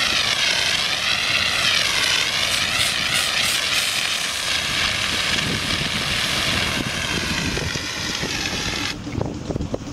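Compressed-air foam discharging from a hose and nozzle: a loud, steady rushing hiss of the foam jet, Class A foam at a 1% mix. It drops off sharply near the end.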